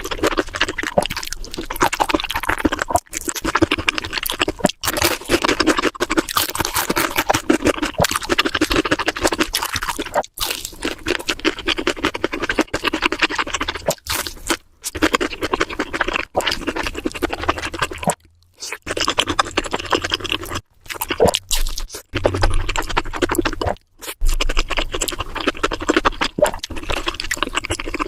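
Close-miked eating sounds: a person chewing and crunching crispy food, a dense run of crackly clicks with a few brief pauses.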